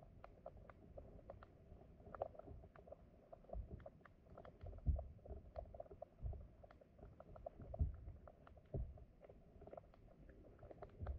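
Stream water heard underwater: a muffled steady flow with many small clicks and ticks and a few low thumps, the loudest about five and eight seconds in.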